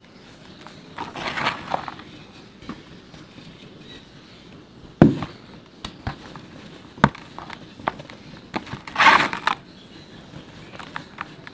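Dry red dirt balls being crushed and crumbled by hand, with gritty crackling and rustling of the powdery dirt. There are sharp cracks about five and seven seconds in, and a louder, longer crumbling rush near nine seconds.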